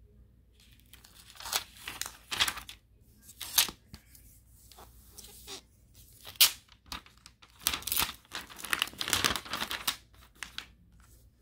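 Thin clear plastic protective film on a tablet being handled and peeled, crackling and crinkling in irregular bursts that are thickest toward the end.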